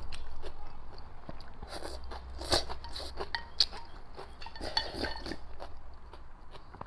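Close-up eating sounds: wet chewing and slurps of rice porridge drunk from a bowl, with scattered small mouth clicks. Two sharp ticks about two and a half and three and a half seconds in.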